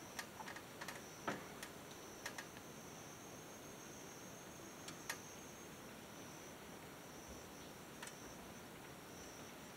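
Faint steady drone of insects, with scattered light clicks and taps, the loudest about a second in.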